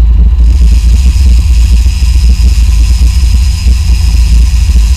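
Boat engines running under way, with wind buffeting the microphone, heard as a loud, steady low rumble. About half a second in, a faint high whine joins it and continues.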